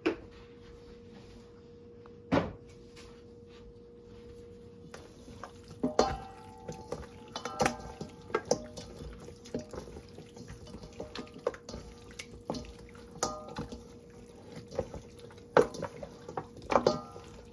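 Hands working raw, oiled chicken legs in a kitchen: scattered wet handling sounds with sharp clicks and knocks, over a faint steady hum. One knock comes about two seconds in, and the handling grows busy from about five seconds on.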